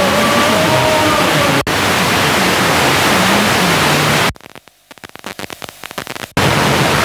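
FM radio hiss and static from a phone's FM receiver tuning between stations, with faint tones of a weak signal under the hiss in the first second or so. The hiss cuts out for an instant, then about two-thirds of the way through drops to near silence with a few crackles for about two seconds before the static comes back.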